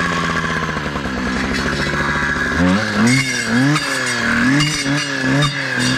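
Two-stroke clearing saw engine running at steady revs, then revved up and down about five times from about two and a half seconds in.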